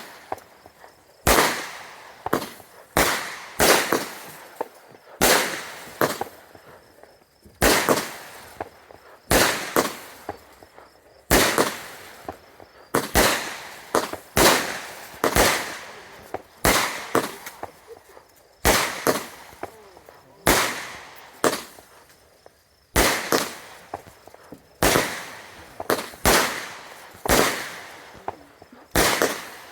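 Consumer fireworks going off in a rapid series of loud bangs, about one a second, each with a short echoing tail.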